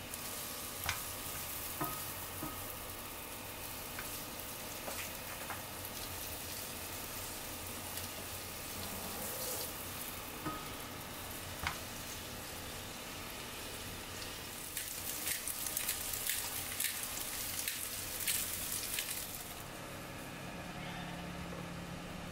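Broccoli and bell pepper pieces sizzling in a nonstick frying pan as they are stirred with a silicone spatula, with scattered light taps of the spatula on the pan. The stirring gets busier in the second half, and the sizzle drops away a few seconds before the end.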